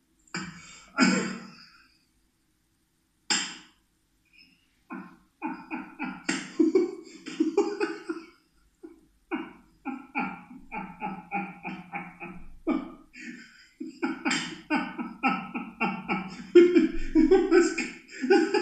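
A man laughing hard: a few short, sharp outbursts in the first few seconds, then long runs of rapid laughing pulses, about three to four a second, that go on almost without a break.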